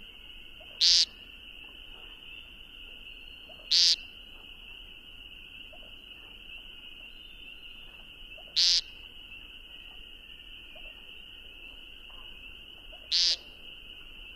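Eurasian woodcock giving four short, sharp, high squeaking calls a few seconds apart, over a steady high-pitched trill.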